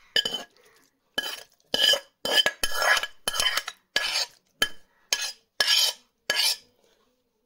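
A metal spoon scraping fried onion and tomato out of a kadhai into a steel mixer-grinder jar: about a dozen short scrapes and knocks, roughly two a second, each with a light metallic ring.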